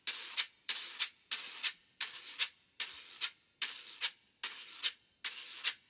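Guacharaca, a ridged scraper stroked with its wire fork, played on its own in the continuous vallenato chandé pattern, the pull (jalón) and the beat (tiempo). About nine even scraping strokes sound, each ending in a sharp accent, roughly every three quarters of a second.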